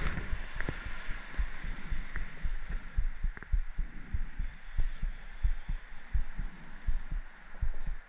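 Dull low thumps, two or three a second and irregularly spaced, over a steady hiss.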